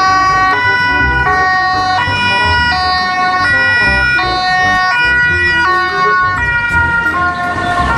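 Toy ambulance's electronic hi-lo siren, alternating between a higher and a lower note about every 0.7 seconds.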